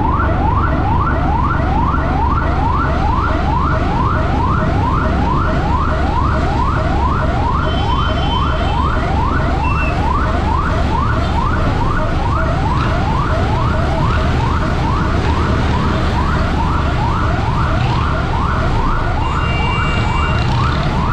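Electronic siren sounding a fast yelp: quick rising sweeps repeating a little over twice a second without a break, over a steady low rumble.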